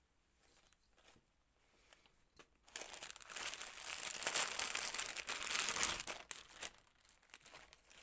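Clear plastic towel packaging crinkling as it is handled and opened, loud and continuous for about four seconds from roughly three seconds in, with softer rustling before and after.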